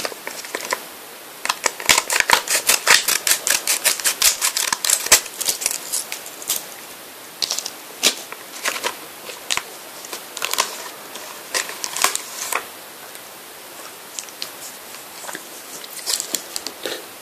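Clear plastic blister pack of trading cards being cut open with scissors: a quick run of crackling snips for about four seconds, then scattered clicks and crinkles of the stiff plastic as the pack is handled and the cards are pulled out.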